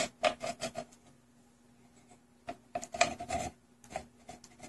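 Circuit board being worked out of the slot in a cruise control module's thin aluminium case: short scraping and clicking rubs of the board and plastic cap against the metal, in two main clusters, over a faint steady hum.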